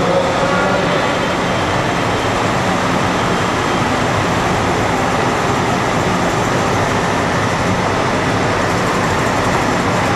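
Semi-truck diesel engines running as tractor-trailers roll slowly past, a steady, unbroken noise.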